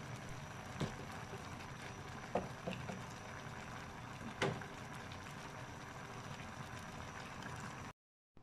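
Mung beans in coconut milk simmering in a frying pan, a steady bubbling hiss with a few sharp pops. It cuts off suddenly near the end.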